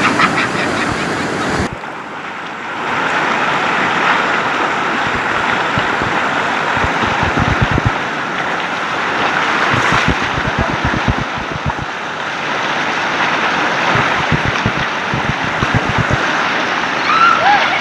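Rushing water in a steady hiss, with wind buffeting the microphone in irregular low thumps.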